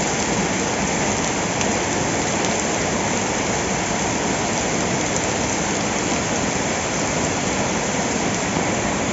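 Heavy storm rain falling in a steady, unbroken hiss.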